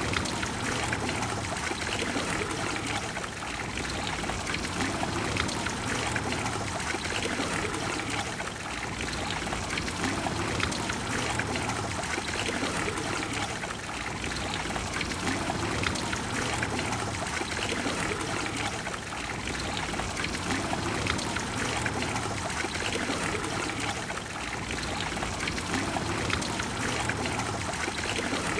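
Water flowing steadily in the Trevi Fountain: continuous rushing and splashing, swelling slightly about every five seconds.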